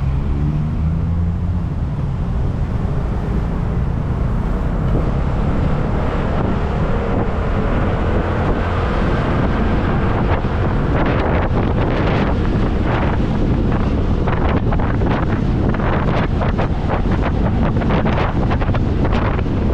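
Motor scooter engine pulling away and accelerating, with a slowly rising whine as speed builds. Heavy wind buffeting on the microphone grows gusty after about ten seconds as the scooter reaches road speed.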